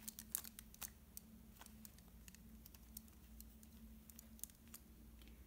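Faint, scattered plastic clicks and taps of a Rubik's Snake puzzle's wedges being twisted and handled, busiest in the first couple of seconds and sparser after.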